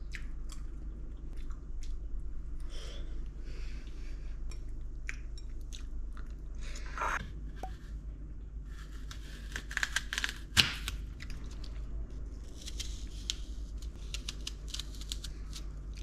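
A knife cutting a crisp apple on a wooden chopping board: crunchy slices, with a sharp knock of the blade on the board about ten and a half seconds in. Before that come a few light clicks of chopsticks on a plate.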